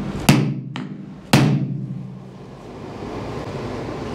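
Claw hammer striking a pin punch to drive a joining pin out of an aluminium two-piece labyrinth seal: three sharp hammer blows within the first second and a half, the middle one lighter.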